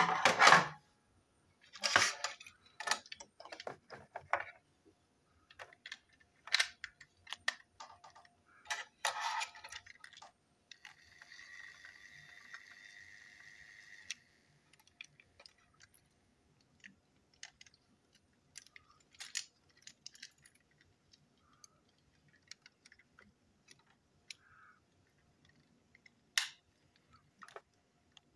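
Hard plastic clicks, taps and rattles of a toy train's body, chassis and wheels being handled and fitted together, loudest in the first few seconds. About halfway through there are a few seconds of a steady hiss.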